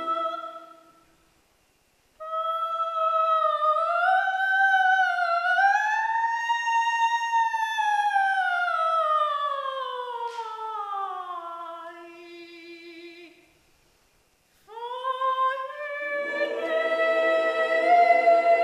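Soprano singing an operatic aria in a classical style with vibrato. A long unaccompanied phrase swells upward and then descends slowly to a low held note. After a short pause she sings again, and the piano accompaniment comes back in about two seconds later.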